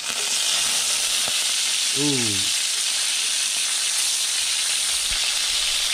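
Dogfish shark medallions sizzling steadily in hot oil in a cast-iron skillet as they are turned with a spatula.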